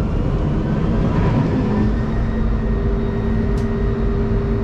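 Oshkosh Striker 4x4 crash truck's engine and water pump running steadily, heard from inside the cab while the roof turret sprays at high flow. A steady hum comes in about a second and a half in and holds.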